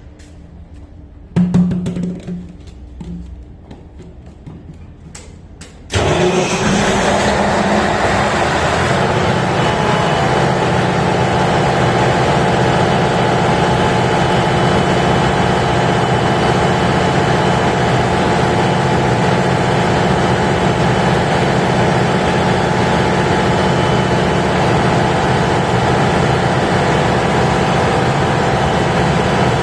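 A short loud burst about a second and a half in, then about six seconds in a Caterpillar auxiliary diesel generator starts: the engine catches abruptly, comes up to speed within a second and runs loud and steady.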